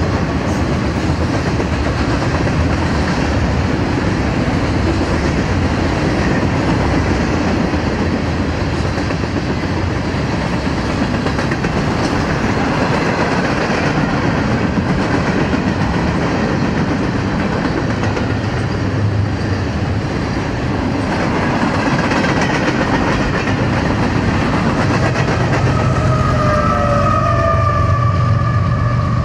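Union Pacific freight train's cars rolling past at speed, a steady rumble of wheels on rail with clickety-clack over the joints. In the last few seconds a wavering high tone rises over the rumble.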